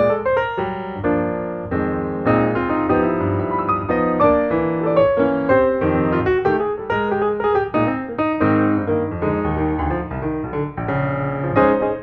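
Background piano music with a steady flow of notes.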